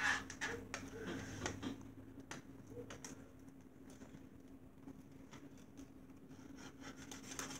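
Faint scratching and small clicks of fingers and a push pin picking at the plastic wrap and seal on a CD jewel case. The scratching is busiest in the first few seconds and sparser after.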